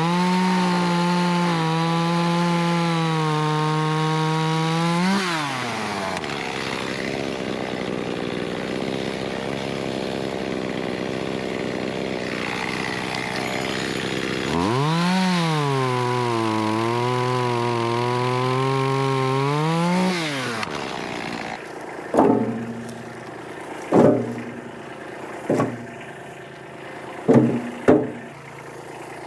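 Echo two-stroke chainsaw running at high revs and cutting through an oak branch, its pitch dipping and rising in two long runs. After the saw stops, several sharp knocks follow.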